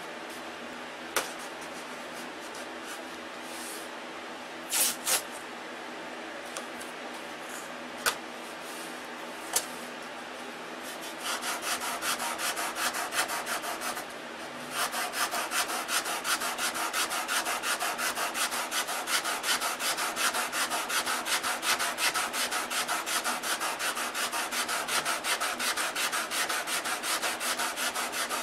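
A few sharp clicks in the first ten seconds, then hand sanding of a balsa wood block wingtip: quick, even back-and-forth strokes of sandpaper on wood. The strokes start about eleven seconds in, pause briefly, and run steadily and louder from about fifteen seconds in.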